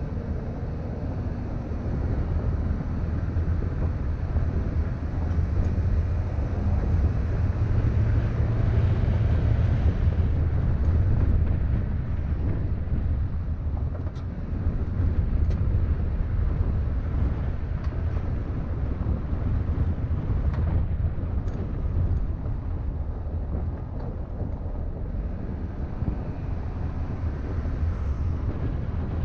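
Vehicle driving on an unpaved dirt road: a steady low rumble of engine and tyres on the track, with a few faint clicks.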